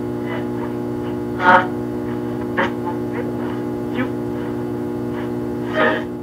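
A steady low hum made of several held tones, with a few short sharp sounds over it. The clearest comes about a second and a half in and another near the end.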